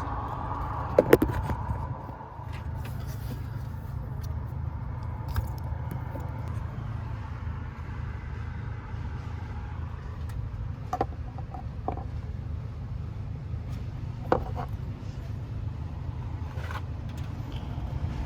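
Hands working a purge valve hose and its clip loose in a car's engine bay: a few scattered sharp clicks and scrapes, the loudest about a second in, over a steady low rumble.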